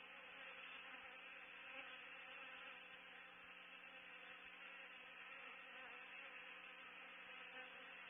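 Honey bees buzzing, a faint, steady hum with no breaks.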